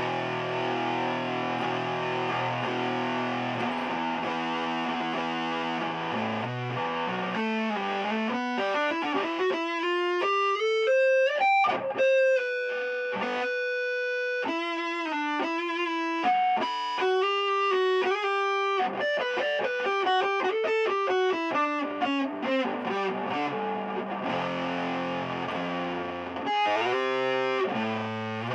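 Electric guitar played through a Keeley Compressor Mini, an Electro-Harmonix Big Muff Pi Nano fuzz and an EHX Soul Food overdrive, all three switched on, giving a distorted tone. It starts with chords, moves to a lead line of single notes with long sustained notes, and returns to chords near the end.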